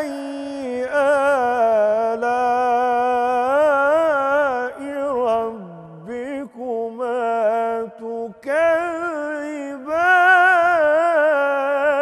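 A man's voice reciting the Quran in the melodic, drawn-out tajwid style, holding long notes with wavering, ornamented pitch and a few short breaks for breath.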